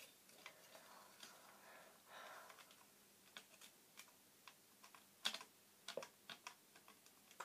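Faint, scattered clicks and taps of a model airplane's small parts being handled and fitted, with one sharper click a little past the five-second mark and a brief soft rustle about two seconds in.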